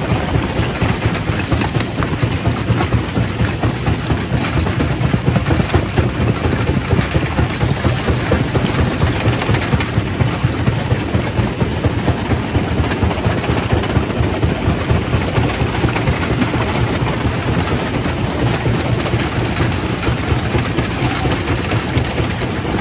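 Quarry primary rock crusher running steadily: a heavy low rumble with a constant clatter of small knocks as stone is crushed.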